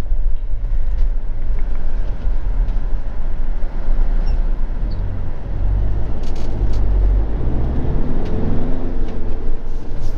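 Motorhome driving at road speed, with a steady low rumble of engine and tyre noise heard from inside the cab. A few light clicks or rattles come about six to seven seconds in.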